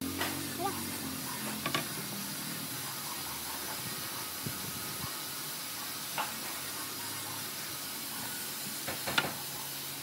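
Steady hiss with a few light knocks of wooden chair parts being handled and fitted together, the sharpest one near the end.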